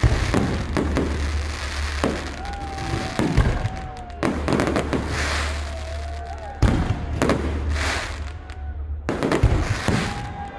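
Aerial fireworks bursting: a series of sharp bangs, with a heavy one right at the start and others about a third, two-thirds and nine-tenths of the way through, and crackling between them.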